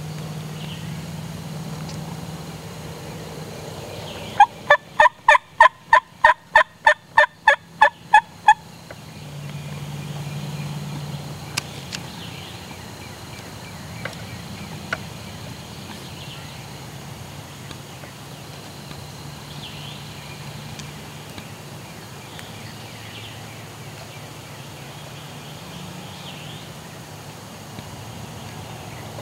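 Wild turkey yelping: a run of about thirteen loud, evenly paced yelps, roughly three a second, lasting about four seconds.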